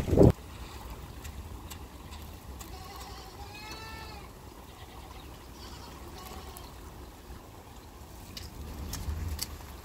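A loud thump right at the start, then one bleat from a sheep or goat about four seconds in, over steady rain with a few sharp drips.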